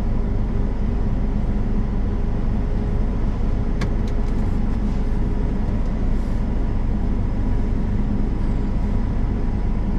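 Case combine running steadily under harvest load, heard from inside the cab as a constant low drone with a few thin steady tones over it. There is a single short click about four seconds in.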